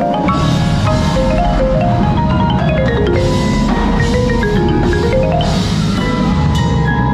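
Marimba played with four yarn mallets: fast runs of ringing wooden-bar notes stepping down and back up the keyboard. Drums and other percussion of a high school drumline play underneath.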